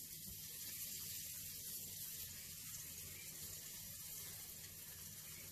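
Buttered bread frying in a hot pan: a faint, steady sizzle.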